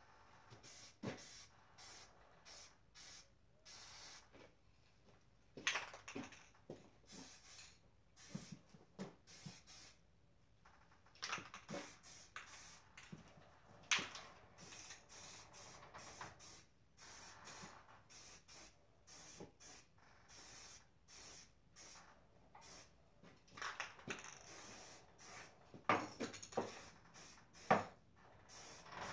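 Aerosol spray paint can spraying in many short, faint hissing bursts, with a few sharper clicks among them.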